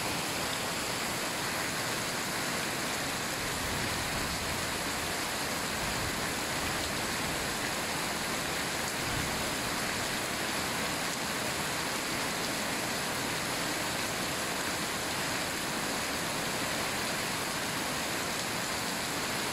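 Heavy rain falling on trees and dense foliage: a steady, even hiss.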